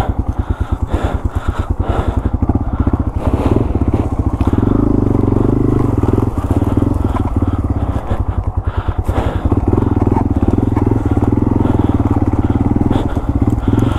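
Yamaha TW200's single-cylinder four-stroke engine running at low speed with an even train of exhaust pulses. It swells louder under throttle about four seconds in and again past the middle.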